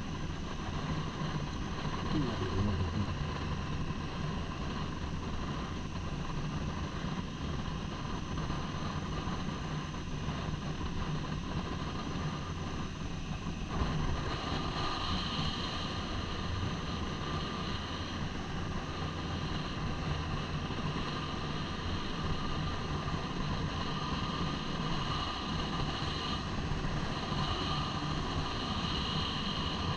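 Triumph motorcycle engine running steadily under way, with wind rushing over the helmet-mounted microphone; the sound grows brighter about halfway through.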